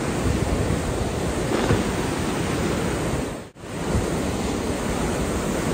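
Mountain stream rushing over boulders as white water, a steady even rush, with a brief dropout about three and a half seconds in.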